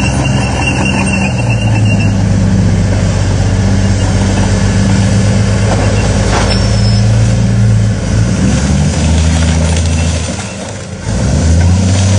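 A tracked armoured vehicle's engine runs loud and steady as the tank crawls up to a car. Its note drops about eight seconds in and dips briefly near the end, then the revs rise again as it starts to climb onto the car.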